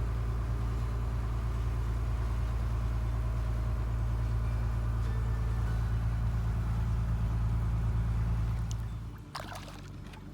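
A diesel trawler's engine running steadily, a low drone, which drops away about nine seconds in, leaving a few light knocks.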